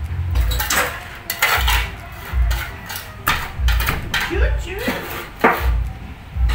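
Several sharp knocks and clinks over background music with a steady beat of about one thump a second.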